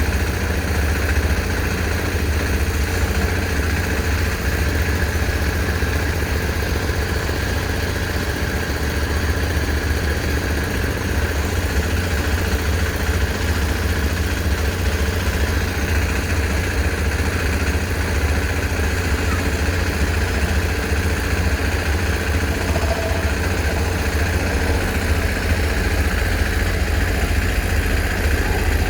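Heavy machine's engine running steadily at a low, even speed: a deep drone without revving or breaks.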